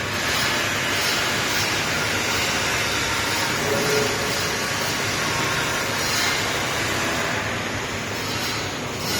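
Steady industrial machinery noise from a running Mazak STX612 MK3 laser cutting machine: an even hiss and hum with no distinct strikes or starts.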